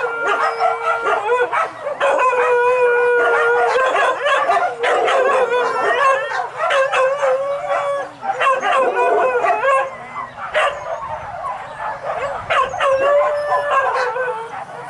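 Hunting dogs howling and baying together: several long, wavering calls overlapping one another, with short yips between them.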